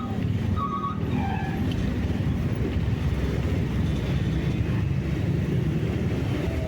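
Motor vehicle driving along a road: a steady rumble of engine and tyre noise.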